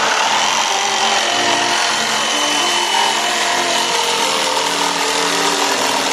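Makita JV103D 12V brushless cordless jigsaw sawing steadily through a wooden board, the reciprocating blade cutting the wood.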